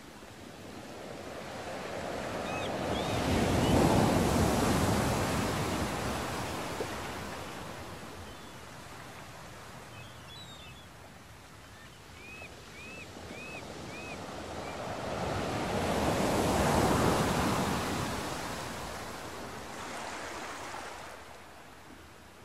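Sea waves rushing and washing, each surge swelling to a peak and fading away, twice about thirteen seconds apart. Faint short high chirps come through at times, four in a quick row about two-thirds of the way through.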